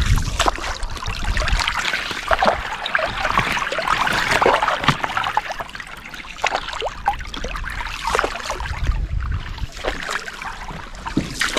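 Water splashing and trickling as a coracle is paddled along, with low rumbles at the start and again about eight seconds in.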